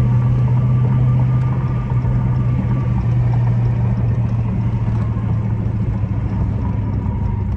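Dodge Charger's 392 (6.4-litre HEMI V8), fitted with a Mopar cold air intake, running at a steady cruise: an even low drone with no revving.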